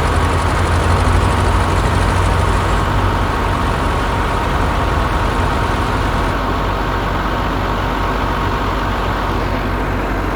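Heavy diesel engine of construction machinery running steadily; its deep hum eases slightly about three seconds in.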